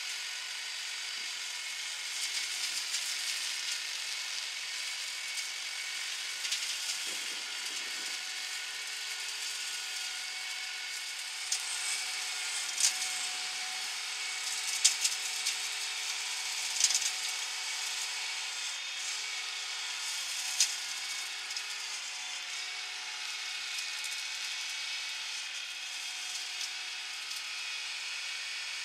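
McConnel flail hedge cutter on a New Holland TS115 tractor running steadily as it cuts into a hedge, with sharp cracks of branches being struck by the flails several times in the middle stretch.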